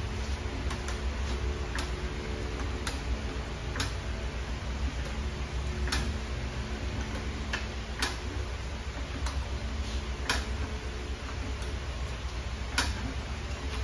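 Hydraulic floor jack being pumped by its handle as it lifts the truck, with a sharp click every second or two on the strokes.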